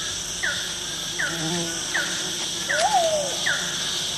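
Rainforest ambience: a steady, shrill chorus of insects, with a short falling call repeated about every three-quarters of a second. About three seconds in, one louder call rises and then falls.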